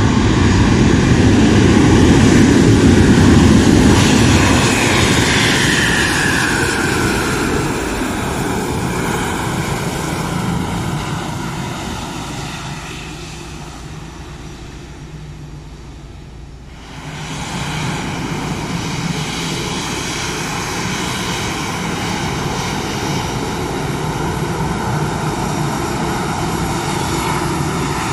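Airbus A320 airliner's jet engines running loud as it moves along the runway, with a whine falling in pitch a few seconds in. The sound fades through the middle, then switches abruptly at about 17 s to a steady engine hum with a high whine.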